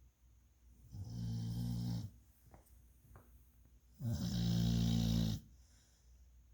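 A sleeping pet snoring: two long, low snores about three seconds apart, the second louder, with soft breathing and a couple of faint clicks between them.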